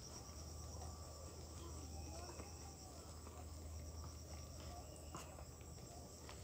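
Insects chirping in the vegetation: a faint, high, pulsing trill that fades and returns, with faint distant voices.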